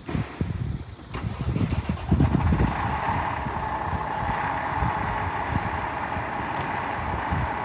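A road vehicle driving by: engine rumble and road noise that rise sharply at the start and hold steady and loud from about two seconds in. Wind buffets the microphone in the first couple of seconds.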